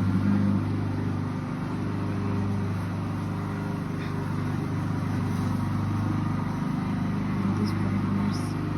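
Lawnmower engine running, a steady unbroken drone.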